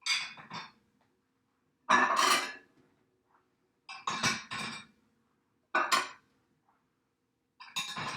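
Dishes being set into a dishwasher rack, clinking and clattering in five short bursts about two seconds apart.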